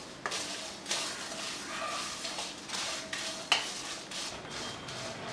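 Wooden spatula scraping and knocking against a metal pan while stirring dry red chillies and cumin seeds as they dry-roast, with a few sharp knocks among the irregular scrapes.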